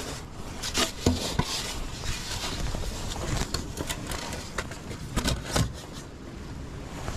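Handling noise from a wooden swarm box being lifted and manoeuvred among tree branches: irregular knocks and scrapes, clustered about a second in and again around five seconds in, with rustling between them.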